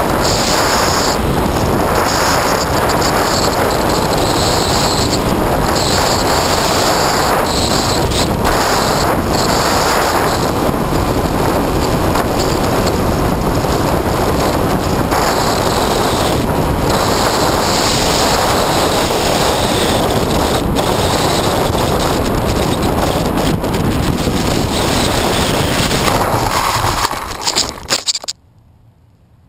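Steady rush of wind over the onboard camera's microphone as the Skywalker FPV plane flies low, with a faint steady high whine in it. About 27 seconds in it breaks up, then cuts off suddenly as the plane crashes into the grass.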